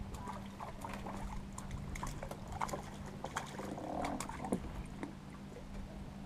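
A hooked fish splashing at the surface as it is scooped into a landing net beside the boat, with scattered small clicks and knocks, the loudest splash about four seconds in. A steady low hum runs underneath.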